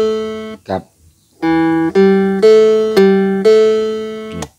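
Homemade phin, the Isan three-string lute, plucked over a steady drone string. A short clipped note comes about three-quarters of a second in, then a pause, then five notes about half a second apart, each ringing until the next. The phrase is stopped abruptly near the end.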